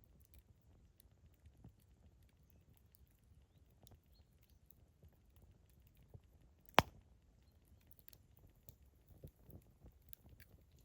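Wood campfire burning: faint scattered crackles over a low rumble, with one loud sharp pop about two-thirds of the way through.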